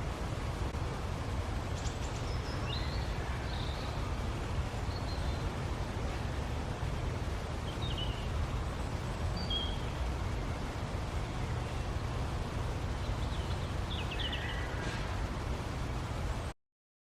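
Outdoor ambience: a steady low rumble and hiss with a few short bird chirps scattered through it, cutting off suddenly near the end.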